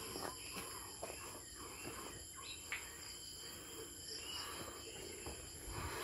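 Chorus of forest insects ringing steadily, several high-pitched tones sounding at once.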